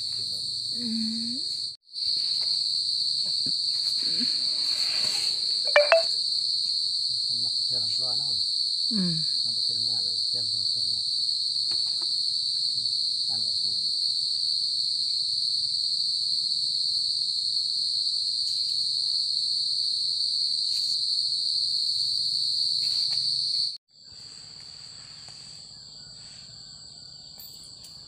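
Steady, loud insect chorus, one continuous high buzz. It cuts out for a moment about two seconds in and is much quieter for the last few seconds.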